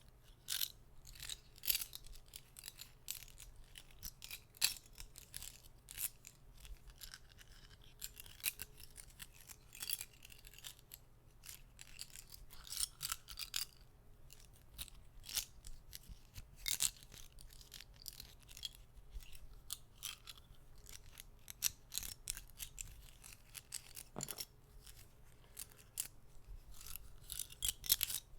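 Soft clicks from small objects handled close to the microphone: an irregular, quick stream of light clicks and short scratchy ticks, several a second.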